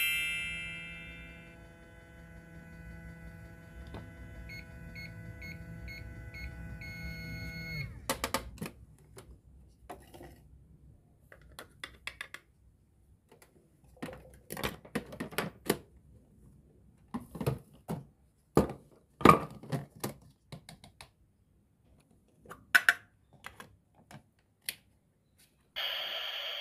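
Toy kitchen set's electronic sound effect: a chime, then a steady hum with a few small beeps that cuts off suddenly about eight seconds in. After it come scattered clicks and clatters of small plastic toy pieces being handled, and water starts running near the end.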